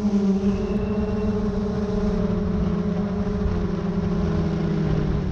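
Car engine droning under a low road rumble, heard from inside a moving vehicle; the engine's pitch eases down a little in the second half, as the speed changes.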